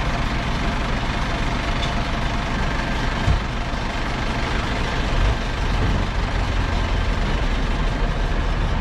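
Heavy diesel engine running steadily at a low idle, with two short dull knocks about three and five seconds in.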